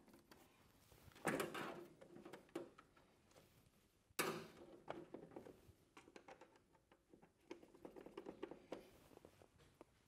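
Faint handling noises from hands working on a steam humidifier's hose clamps, fittings and wiring: two short knocks with rustling after them, then a run of small clicks near the end.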